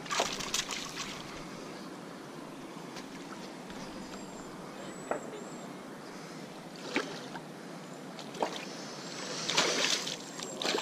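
Shallow water sloshing against a rocky shore, broken by several sharp splashes from a hooked bowfin thrashing at the surface as it is played in on a light rod; the loudest splashing comes near the end.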